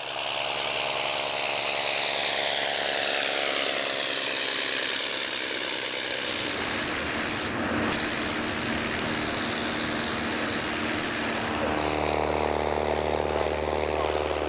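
Propeller aircraft engines running across several cut-together shots. The engine first falls gradually in pitch, then the sound changes abruptly twice, about halfway and about three-quarters through, ending on a steady low engine drone.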